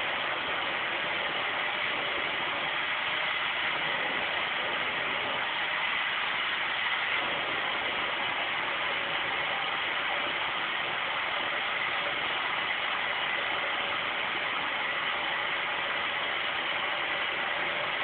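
Vacuum cleaner running steadily, an even rushing noise with a faint high whine, unchanged throughout.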